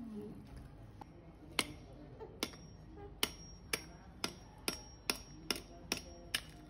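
About ten sharp knocks at roughly two a second, each with a brief metallic ring: a steel cutting blade chopping into a large mrigal carp.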